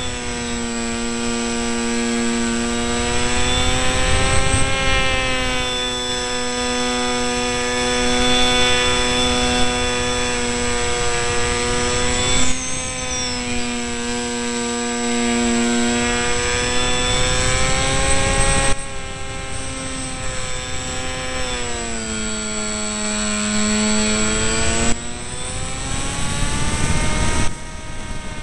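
Electric motor and propeller of an RC delta-wing model whining in flight, its pitch drifting slowly up and down with the throttle, over a steady rush of wind on the model's onboard camera. The sound changes abruptly a few times.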